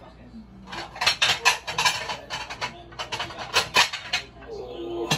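Plates and cutlery clattering as dishes are handled and set down: a quick run of sharp clinks and knocks, a short pause, then a few more near the end.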